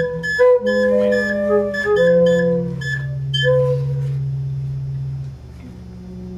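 Several handheld square wooden organ pipes blown by mouth at once, sounding overlapping steady tones of different pitches over a low drone, with notes starting and stopping. The higher notes drop out about four seconds in, and just after five seconds the sound falls quieter to a softer held chord.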